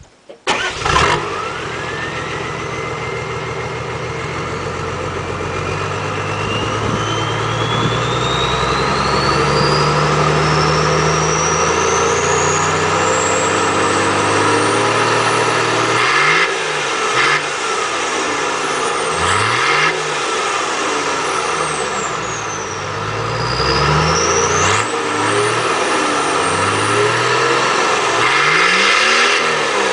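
A vehicle engine starts with a sharp burst about a second in and settles into a steady fast idle, while a high whine climbs slowly in pitch. In the second half it is revved again and again, each rev rising and falling.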